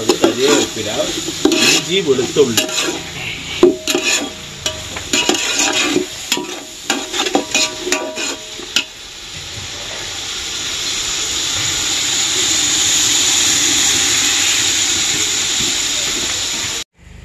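Mutton ribs frying in a pan: a spatula stirs and scrapes the meat, with sharp clacks over a sizzle. About nine seconds in the stirring stops and the frying swells into a steady, loud sizzling hiss.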